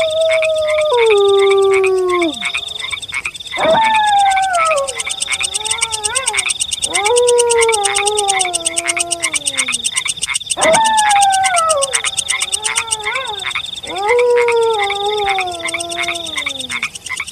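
Wolves howling: a series of long howls, each starting high and sliding down in pitch, one every three to four seconds. Under them is a steady chorus of frogs croaking in a quick rhythm, with a high pulsing trill.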